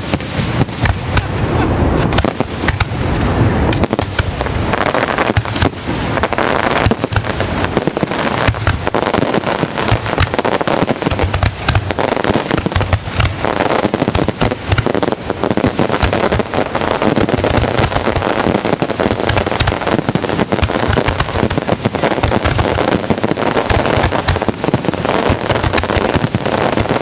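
Fireworks going off in a rapid, continuous barrage: bangs and crackling packed closely together, loud throughout with no pauses.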